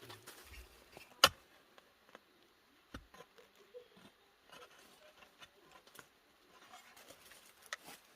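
Scattered knocks and thuds of digging potatoes out of soil, with one sharp knock about a second in and a dull thud a couple of seconds later.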